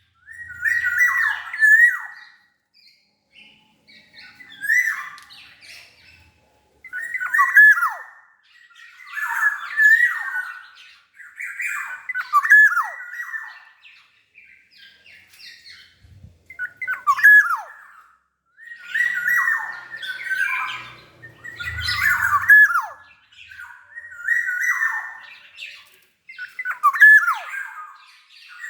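Black-naped oriole (kepodang) calling over and over: harsh, rasping squawks mixed with short whistled notes, one phrase about every two seconds.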